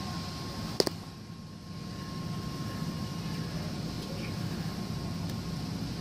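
A steady low hum, with one sharp metallic click a little under a second in: the knife blade striking the steel bowl while slicing honeycomb.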